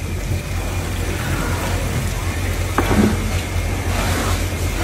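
Fishing boat's engine running steadily with an even low pulsing hum, with a single knock about three seconds in.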